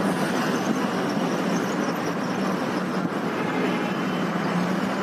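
Steady road traffic noise, an even hiss of passing vehicles.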